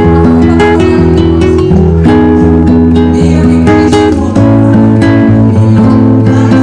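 Background music: plucked and strummed guitar over a steady bass line.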